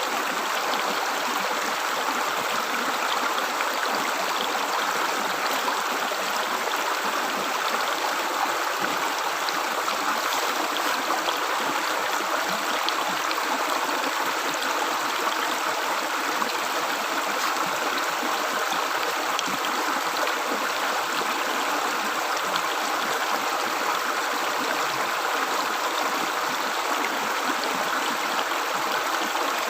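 River water gurgling in a steady, unbroken rush.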